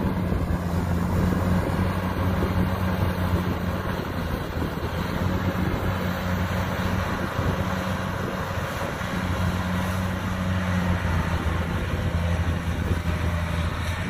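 Kubota DC70 combine harvester's diesel engine running steadily under load with a low drone, its cutting and threshing machinery adding a rushing noise as it harvests rice.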